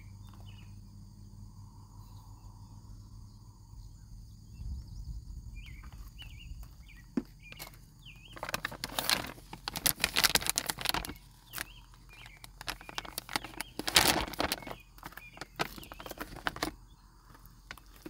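Plastic bag of frozen beef mandu dumplings crinkling as it is handled, in loud ragged bursts about halfway through and again a few seconds later. Birds chirp briefly in between.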